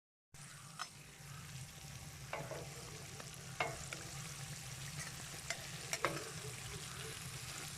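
Pieces of carp frying in hot oil in a cast-iron kazan, a steady sizzle. About five sharp knocks of a utensil against the pot come through between one and six seconds in.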